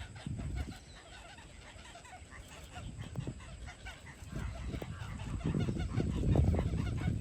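Many short bird calls chattering throughout, over a low rumbling noise that swells loudest near the end.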